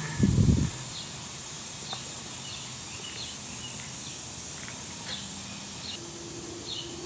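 A brief low thump just after the start, then a quiet background with short, faint high chirps that repeat at irregular intervals of about half a second to a second.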